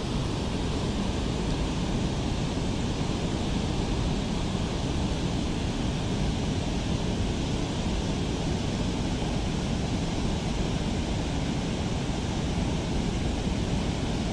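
Steady rushing outdoor noise, heaviest in the low end, with no distinct events.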